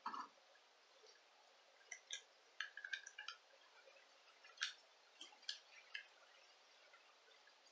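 Faint, scattered light clicks and scrapes of a small screwdriver working a tiny screw through a metal bracket in a plastic headphone headband, with a cluster of clicks about three seconds in.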